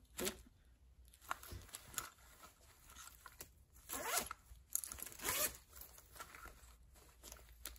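Zip of a fabric zipper pouch being pulled open and shut in several short strokes, with the strongest run of strokes about four to five and a half seconds in.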